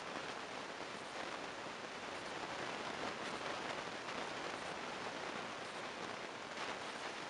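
Steady, even hiss of outdoor background noise, with no distinct event standing out.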